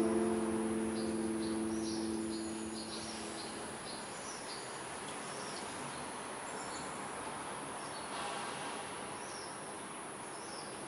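Background guitar music fading out over the first few seconds, then outdoor ambience: a steady hiss with many short, high chirps scattered through it.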